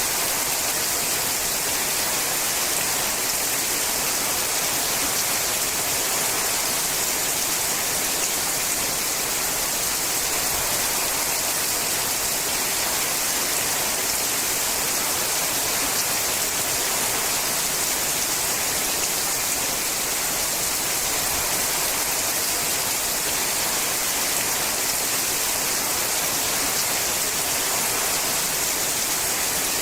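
Steady rain falling on a sheet-metal roof: an even, unbroken hiss with no single drops or other sounds standing out.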